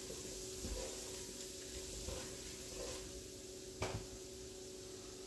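Chopped onion and celery sizzling gently in bacon grease in a Dutch oven as a wooden paddle stirs them, with a few light knocks and one sharper knock a little under four seconds in.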